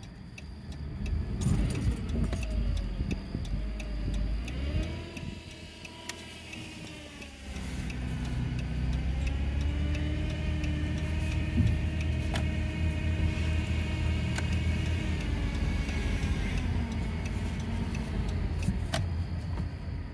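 A 2012 Dodge Grand Caravan heard from inside the cabin while creeping at very low speed: a low rumble with a whine over it that slowly rises and falls in pitch, and a few light clicks.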